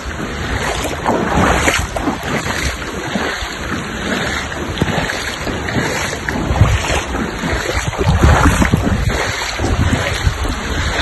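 Steady rush of floodwater filling a street, with wind buffeting the microphone.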